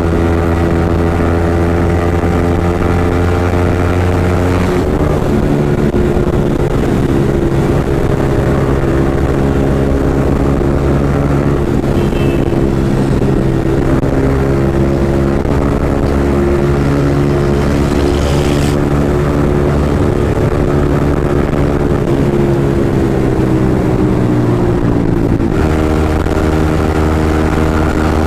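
Yamaha MT-15's single-cylinder engine running through an aftermarket Akrapovic exhaust, loud, while riding at a steady throttle. Its pitch shifts about five seconds in and again near the end as the throttle or gear changes.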